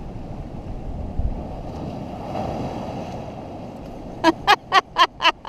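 Ocean swell spilling through a gap in the rocks and washing into a shallow tidal pool, with wind on the microphone. Near the end, a quick run of about five short, loud, high-pitched vocal cries from a person.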